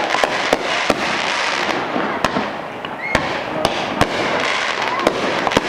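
Fireworks display: sharp bangs of bursting shells and launches at irregular intervals, roughly two a second, over a steady hiss.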